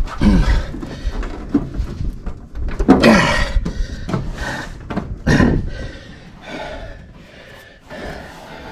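A man grunting and groaning with strain, about three times, over knocks and rustling, as the heater box is forced into place to line up its mounting studs.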